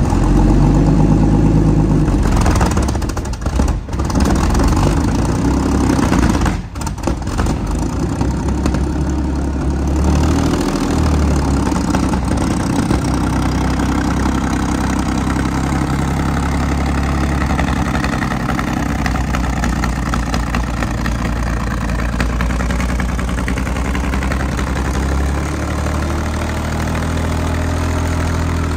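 Centurion ARV's V12 engine running roughly on only half its cylinders, like a V6, and sounding awful, with a couple of brief dips in the first seven seconds. The fault is later put down to only one carburettor feeding the whole engine.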